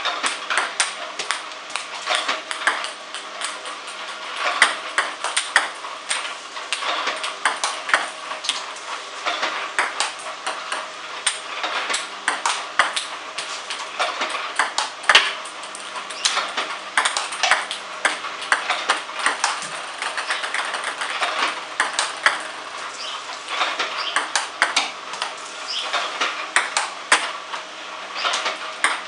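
Table tennis balls clicking in quick, irregular succession during a backhand robot drill: an iPong Master V300 table tennis robot fires balls that bounce on the table, are struck by the bat, and land on the far side. A faint steady hum sits underneath.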